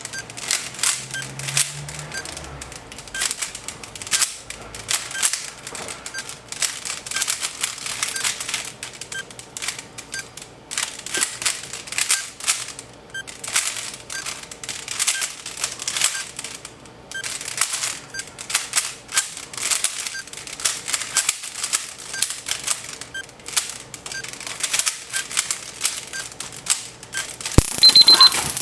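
A Rubik's cube being turned fast, its layers clicking and rattling almost without a break, over a faint tick about once a second. Near the end a sudden louder noisy burst with short high beeps cuts in.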